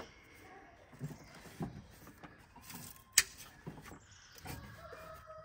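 Ignition parts on an old truck's distributor clicking into place: one sharp snap right at the start and another about three seconds in, with soft knocks of hands working among the wires between.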